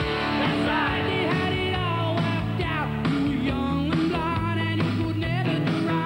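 Rock music with electric guitar over a steady drum beat, its lead line bending in pitch.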